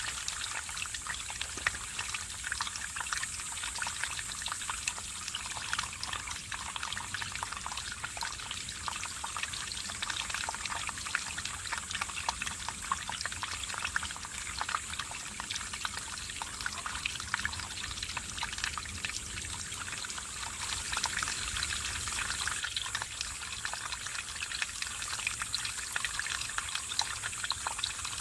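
Mountain stream babbling and splashing over rocks, a steady bright trickle with many small splashes.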